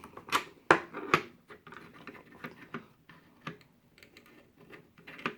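Impact sockets clicking and clacking as they are pulled off and pushed onto the posts of a socket holder: a few sharp clicks in the first second and a half, lighter ticks and rattles after, and one more sharp click near the end.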